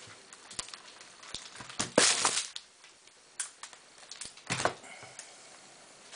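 Hard salt soap being pried out of a soap-mould divider: a series of sharp clicks, knocks and scrapes, with a loud crackling scrape about two seconds in and another sharp crackle later on.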